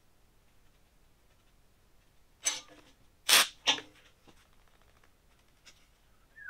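Three short metal clanks in quick succession about midway, steel frame pieces being handled and set down on a shop bench, two of them ringing briefly. A short falling squeak comes near the end.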